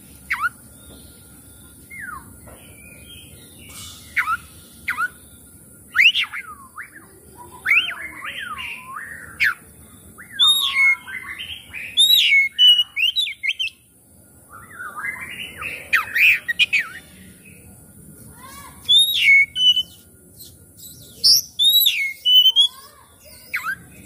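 Oriental magpie-robin singing: varied whistled phrases of rising and falling notes, delivered in bursts with short pauses between them.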